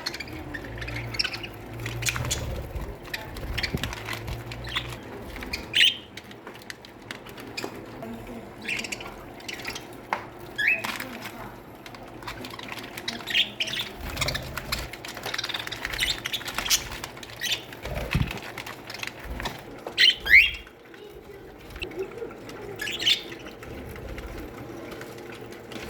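A colony of budgerigars chirping and chattering continuously, with a few louder, sharp calls standing out.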